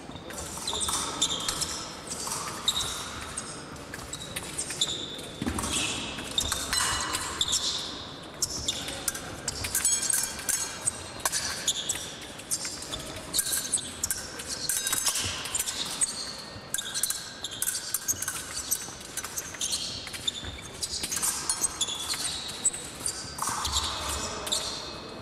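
Épée fencers' footwork on the piste: repeated shoe squeaks and stamps coming thick and fast, echoing in a large hall.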